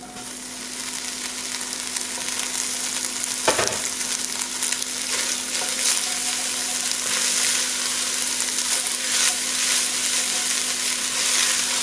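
Ground turkey and green onions sizzling in a frying pan as they are stirred. The sizzle swells over the first couple of seconds and then holds steady, with one sharp knock about a third of the way through.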